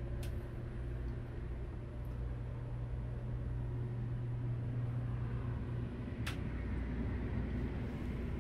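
Steady low mechanical hum of a yacht's onboard systems, heard below deck, with two faint clicks: one about a quarter second in and one about six seconds in. The hum's lowest tone drops away at the second click.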